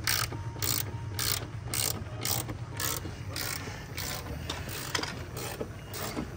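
Long-handled ratchet being swung back and forth on a Scania truck's cab front mount bolt, its pawl rasping on each return stroke about twice a second. The work is part of replacing the worn cab mount bushes. A steady low hum runs underneath.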